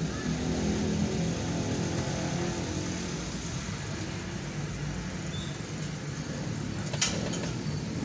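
Road traffic with motor scooters riding past, heard as a steady engine hum with road noise, strongest in the first few seconds. A single sharp click about seven seconds in.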